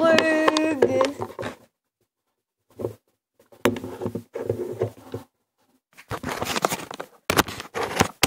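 A voice humming a gliding tune that stops about a second in, followed by scattered bumps, clicks and rustling as the camera is handled and repositioned.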